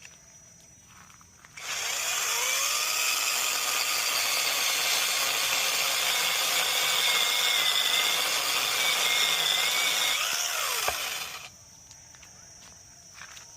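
A power tool starts abruptly about two seconds in and runs for about ten seconds, giving a steady high whine over a rasping hiss. Its pitch climbs as it spins up and drops as it winds down before it cuts off.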